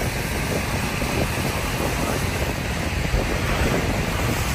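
A freight train of covered hopper cars rolling past with a steady rumble, mixed with wind buffeting the microphone.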